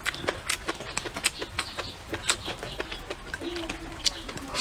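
Close-miked eating: irregular wet chewing and lip-smacking clicks, about two or three a second, as rice and stir-fried bacon are chewed, with a brief low hum about three and a half seconds in.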